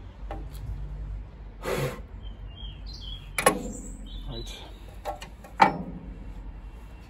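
A steel ring spanner clinking against the Villiers petrol engine of a cement mixer: a short rustle, then two sharp ringing clinks about two seconds apart. Birds chirp faintly in the background.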